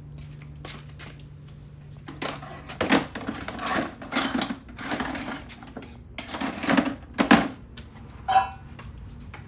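Metal hand tools clinking and clattering as they are picked up and handled, a run of sharp knocks over several seconds. A steady low hum lies under the first few seconds, and a short squeak comes near the end.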